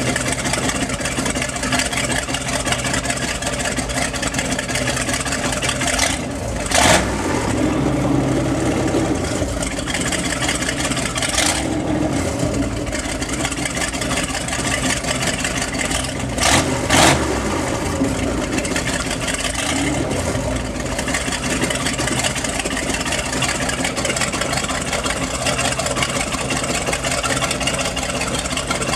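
MerCruiser 7.4 L 454 big-block V8 in a sterndrive boat running on the trailer with its Corsa Captain's Call side exhaust open, exhaust and cooling water blowing out of the hull-side ports. A steady rumble with two brief louder bursts, about seven and seventeen seconds in.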